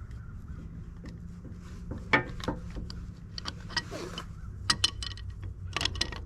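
Scattered metallic clinks and taps of tools and fittings during work on a flat-face hydraulic quick coupler, the sharpest about two seconds in and a few more near the end, over a low steady hum.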